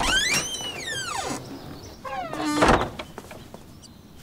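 Wooden double doors pushed open, the hinges giving a long creak that rises and then falls in pitch. A second, shorter creak follows, ending in a loud thud about two and a half seconds in.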